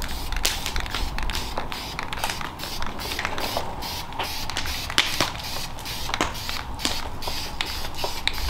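Aerosol spray paint can hissing as green paint goes onto the engine block, with many sharp, irregular crackling clicks throughout.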